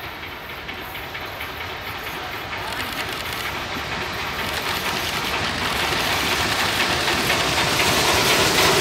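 South African Railways steam train drawing closer, its working noise of steam and rolling wheels growing steadily louder.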